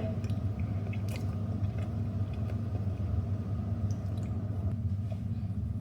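A person biting into and chewing a soft, slightly underbaked cookie, with faint scattered mouth clicks, over a steady low hum.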